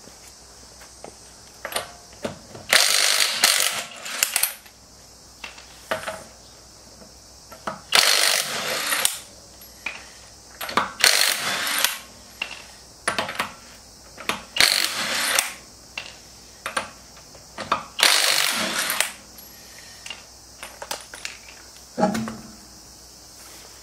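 Cordless impact wrench run in five bursts of about a second each, spinning off a car wheel's five lug nuts, with small metallic clicks of nuts and socket handled between bursts. A single knock near the end as the loosened wheel is worked off the hub.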